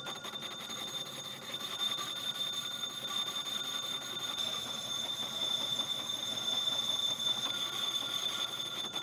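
Homemade Gingery metal lathe running, likely under cut: a steady high-pitched whine over a fast, even rattle, slowly growing louder.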